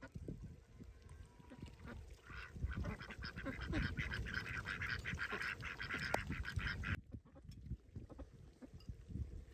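Domestic ducks quacking in a quick run of short calls that starts about two seconds in and cuts off suddenly about seven seconds in.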